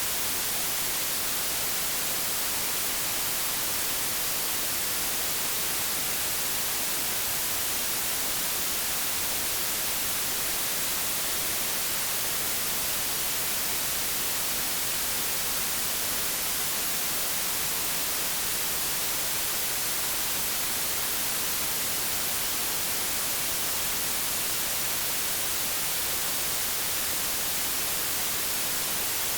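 Steady white noise: an even, featureless hiss, brightest in the treble, with no changes in level or character.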